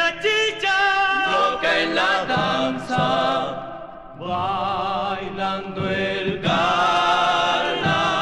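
Argentine folk recording: a male vocal group singing long held notes in close harmony, with vibrato, over guitar accompaniment. The voices ease off briefly about halfway through, then come back in together.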